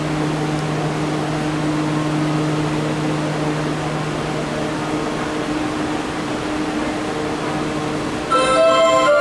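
Subway train standing at the platform with its doors open, its onboard equipment giving a steady hum with a low drone. About eight seconds in, an electronic platform chime melody starts and is louder than the hum.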